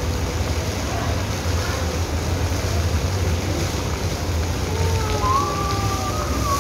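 Steady low rumble of wind buffeting the microphone, with a drawn-out voice near the end.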